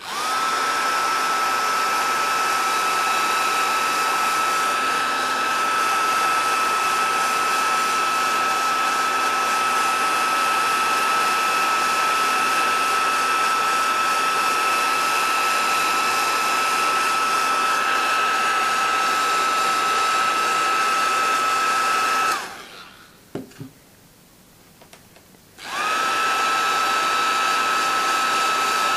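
Small handheld hot air blower running with a steady fan whine and a high tone, spinning up as it is switched on. It is switched off about 22 seconds in and switched back on about three and a half seconds later.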